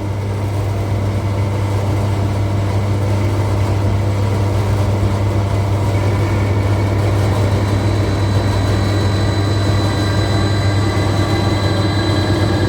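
Common-rail diesel injector test bench running steadily with a low hum, its high-pressure pump driving an injector through a pilot-injection test. It grows a little louder over the first few seconds, then holds steady.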